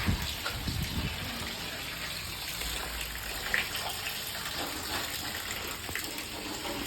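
Water gushing and splashing steadily in a bathroom being water-tested, the flow checking the floor drain.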